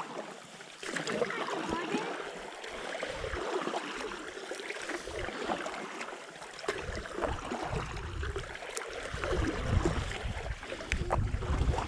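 Water splashing and gurgling around a stand-up paddleboard as it is paddled, with many small ticks and drips. A low rumble comes in about seven seconds in and runs on.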